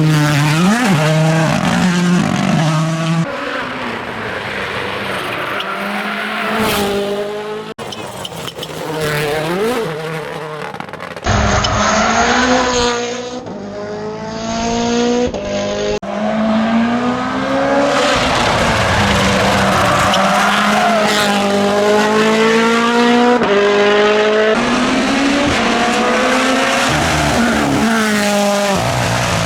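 WRC rally cars' engines accelerating hard through the gears in a run of short shots. The pitch climbs in each gear and drops at every shift, many times over.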